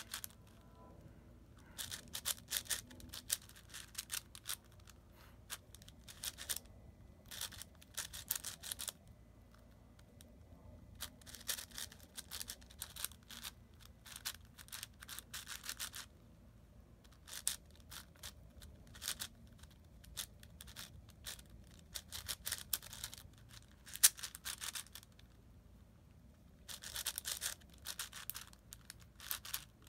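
A new, still-dry 6x6 speedcube turned rapidly by hand: quick runs of plastic layer-turn clicks and rattles, broken by brief pauses between runs of moves.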